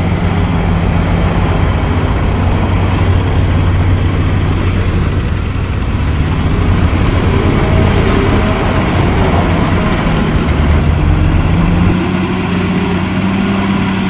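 Heavy earthmoving machine's diesel engine running steadily under load. Its note shifts and rises slightly about twelve seconds in.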